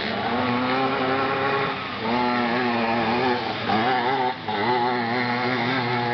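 Dirt bike engines racing, revving hard with the pitch rising and falling as the throttle opens and closes, with a brief drop about two seconds in and again just past four seconds.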